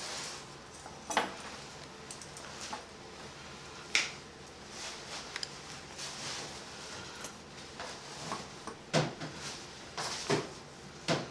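Steel surgical instruments (forceps, scissors, hemostats) clinking and clicking now and then, with a few sharp clicks spread through and the loudest ones near the end.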